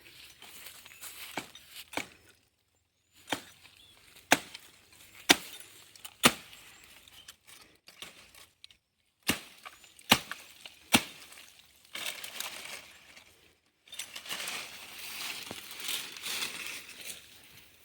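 A blade chopping into a Canary Island date palm: sharp strikes, several of them about a second apart, with rustling of cut fronds and fibre between.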